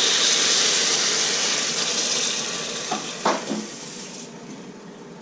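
Water poured into a hot pressure-cooker pot of sautéed onions, garlic and plantain, hissing and sizzling loudly as it hits the hot oil, the hiss dying away over about four seconds.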